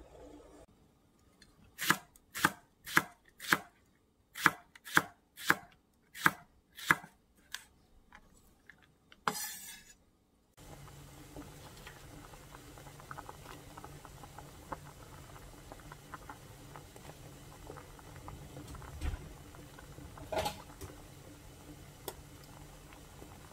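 Knife chopping on a cutting board, about a dozen sharp strokes at roughly two a second, ending in a short scrape. After a cut, a pot of soup simmers on the stove with a low steady sound and faint bubbling ticks.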